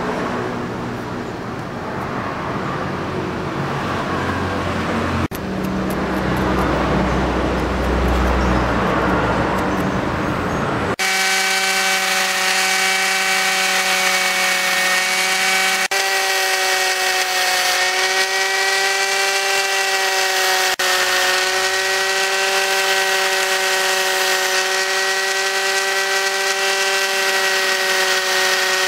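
Small electric angle grinder fitted with a sanding disc running with a steady whine, its pitch dipping and wavering a little as a corn-cob ring setting is pressed against the disc and sanded. The whine starts suddenly a little over a third of the way in, after a duller, noisier stretch.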